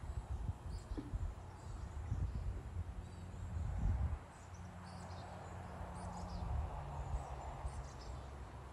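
Backyard outdoor ambience: a low rumble that is loudest in the first four seconds, with scattered faint high chirps.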